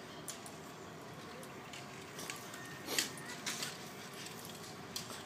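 Shiba Inu puppy digging in loose soil with its front paws: irregular scratches and scrapes of dirt, the loudest about three seconds in.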